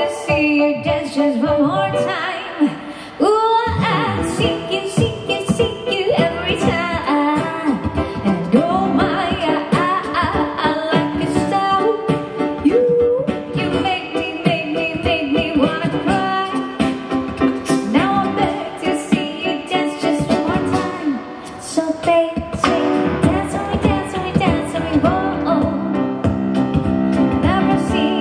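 Live pop song performance: a woman sings the lead with a man's voice alongside, over keyboard and a steady beat. The music dips briefly about three seconds in and again near twenty-one seconds in.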